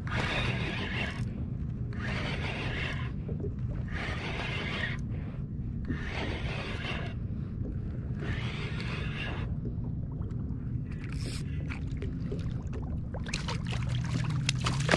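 Water splashing around a kayak in a regular rhythm, about one splash every two seconds, over a steady low hum. Near the end, quick clicks and rattles of gear being handled set in.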